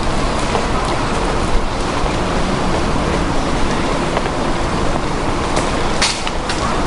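Steady wash of distant city and harbour traffic noise, with a few sharp clicks near the end.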